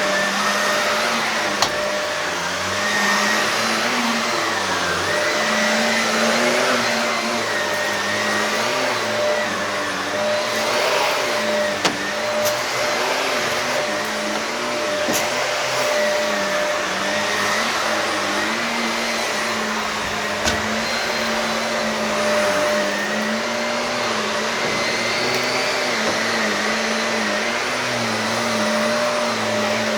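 Shark vacuum cleaner running continuously over an old carpet, a steady motor whine whose lower hum wavers slightly in pitch. A few sharp clicks come through over it.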